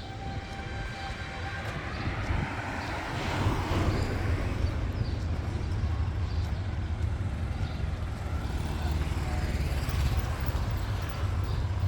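Diesel train running at the station, a steady low rumble that grows louder about three seconds in and holds.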